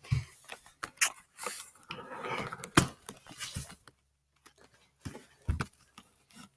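Handling noise: scattered small clicks, taps and rustles from hands and the handheld camera moving close by, with a short near-silent gap about two-thirds of the way through.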